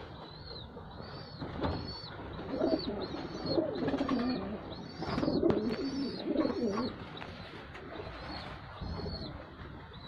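Domestic pigeons cooing in a loft, the low throaty calls loudest through the middle. A thin high chirp repeats about twice a second over them.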